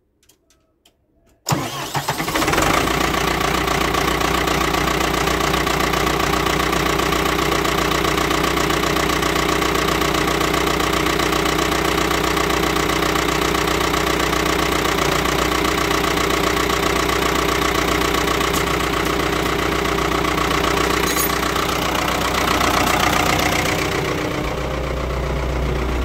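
Ford 6610 tractor's four-cylinder diesel engine cranked by a new geared starter, firing almost at once about a second and a half in, then idling steadily. A cold start with no cold-start aids, neither the excess fuel button nor the manifold heater.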